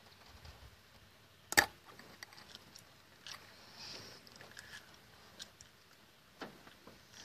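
Small metal parts and a hand tool clicking and tapping on a carburetor's throttle linkage while a small retaining key is fitted to the lever: one sharp click about one and a half seconds in, then scattered lighter ticks.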